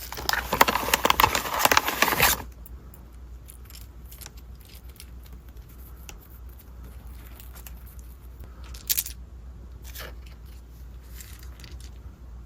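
Packaging being handled: about two seconds of dense crinkling and tearing, then quieter handling with a few scattered light clicks and rustles.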